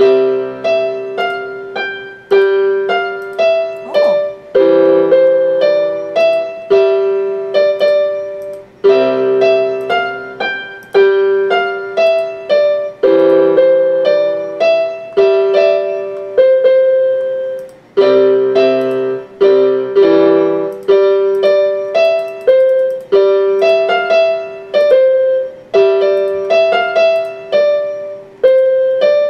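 Electronic keyboard played with a piano voice: a two-handed melody over low chords, each note decaying after it is struck, in repeated phrases of about four seconds with brief gaps between them.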